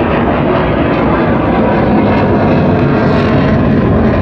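Military jet aircraft flying over, a loud, steady rush of jet engine noise.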